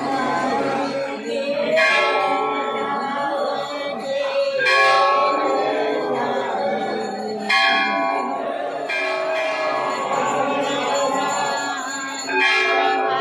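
Temple bells ringing continuously during an aarti, with several louder strikes a few seconds apart, over a crowd of voices singing.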